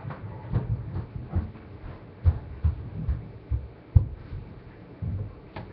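Irregular dull thumps and knocks, about a dozen, with a few sharper clicks among them; the loudest is a sharp knock about four seconds in.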